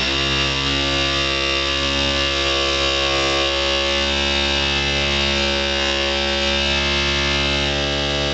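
Porter-Cable 7424XP random orbital polisher running steadily at its top speed setting, its pad pressed hard against a car's painted fender. A steady electric motor hum with many overtones.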